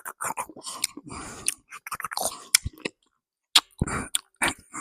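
Close-miked chewing and wet mouth sounds: quick clicks and smacks of food being eaten, with a brief silence about three seconds in.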